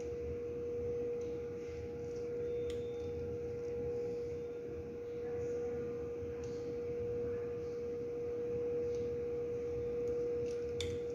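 A steady hum: one unchanging tone held throughout over a low rumble, with a couple of faint clicks.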